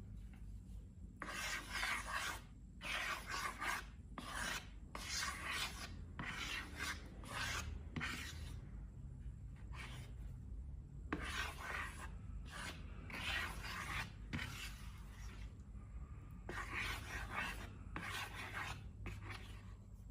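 A long run of short, scratchy rubbing strokes, each under a second, with brief pauses between them.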